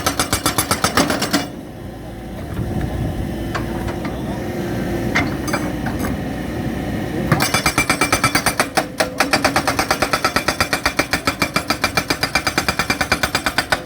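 Unicorn UN100B hydraulic rock breaker on an excavator hammering in rapid, even blows, several a second. It stops about a second and a half in, leaving the excavator's engine running with a few clicks, and starts hammering again about seven seconds in.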